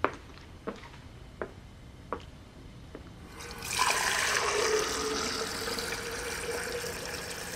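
A tap is turned on about three and a half seconds in, and water runs steadily into a kitchen sink. Before it come four light clicks, about two-thirds of a second apart.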